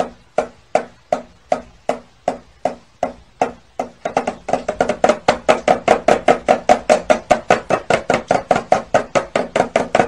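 Cockatiel rapping its beak on a metal mesh strainer in a steady rhythm, each tap with a short ring. About three taps a second at first, quickening to about five a second and getting louder after about four seconds.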